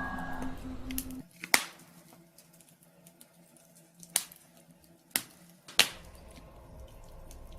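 Intro music fades out about a second in. Then a wood fire crackles faintly, with four sharp, widely spaced pops.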